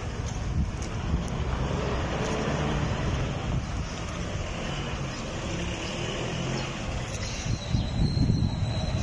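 Nissan bus's diesel engine running as the bus creeps forward and turns, with wind buffeting the microphone. A faint high whine sounds for about a second near the end.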